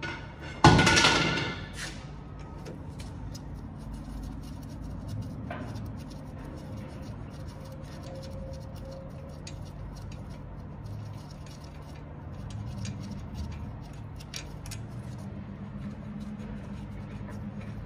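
A loud metallic clank of hand tools on the drive shaft bolts about a second in, ringing briefly as it fades, followed by light tool clinks over a steady low hum.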